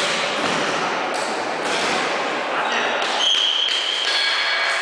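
Echoing game noise of an indoor floorball match: players' voices mixed with the scuffle of plastic sticks and feet on the court, with a short high steady tone about three seconds in.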